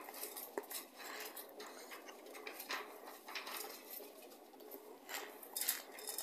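A thin clear plastic food container and its snap-on lid being handled, giving a scattered run of small plastic clicks and crackles.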